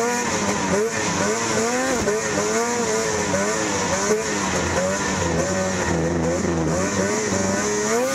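Lynx RS snocross race sled's two-stroke engine heard from on board at race pace, its revs rising and falling over and over, with a steady hiss.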